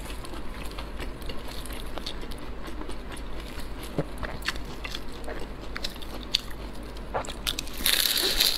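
Close-miked mouth chewing with scattered small clicks, then near the end a loud, crisp crunch as a bite is taken from a flaky pastry stuffed with green peppers and century egg.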